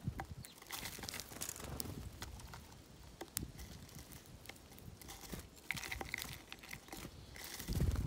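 Small birds pecking at seed on a metal platform feeder: scattered sharp taps and rustling of loose seed, with brief wing flutters as birds land and take off. A low thump near the end is the loudest sound.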